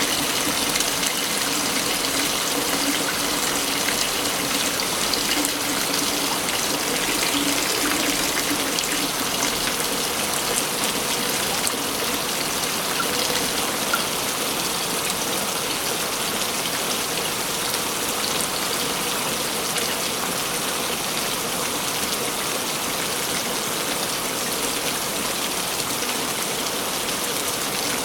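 Waterfall rushing steadily: a dense, even hiss of falling water that does not let up.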